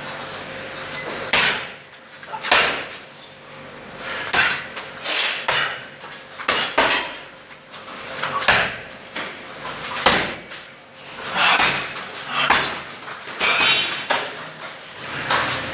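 A series of sharp thuds and slaps, irregularly spaced at roughly one a second.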